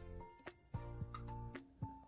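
Background music: held notes that change every half second or so, over light percussive beats.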